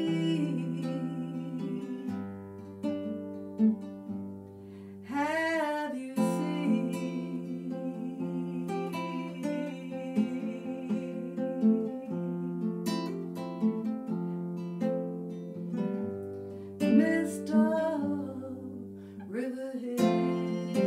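Acoustic guitar playing an instrumental passage of a folk song, with a short wordless sung note that wavers up and down twice.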